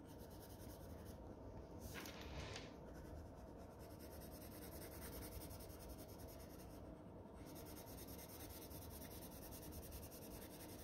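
Faint scratching of a coloured pencil shading on paper, with a couple of brief pauses between strokes.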